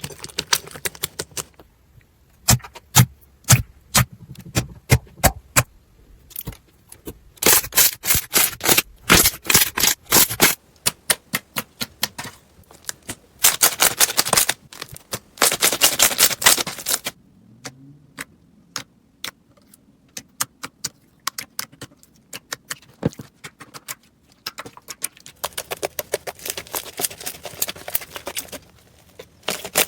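Slime being squeezed and poked by hand, making sharp crackling and popping clicks. The clicks come in dense runs, with a sparser, quieter stretch in the middle.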